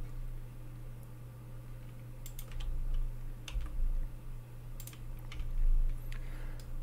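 Computer keyboard and mouse clicks: a handful of short, irregular taps spread over the few seconds, over a steady low electrical hum.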